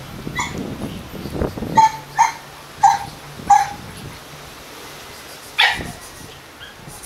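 Doberman Pinscher barking: about six short, high-pitched barks, four of them close together between about two and three and a half seconds in, and a last one near six seconds.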